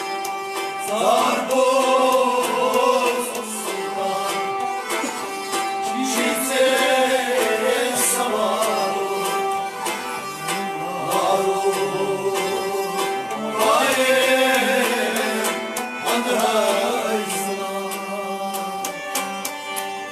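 Live Kashmiri Sufi song: a singer's voice in long, wavering phrases over held instrumental tones and drum strokes.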